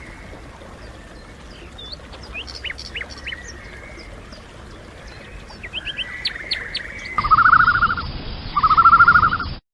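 Birds chirping in short, quick notes over a steady background hiss for about seven seconds. After a sudden change, two loud buzzy calls follow, each under a second long.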